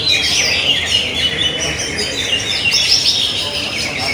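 A dense chorus of many caged songbirds singing at once: fast, overlapping chirps and whistled notes with no pause.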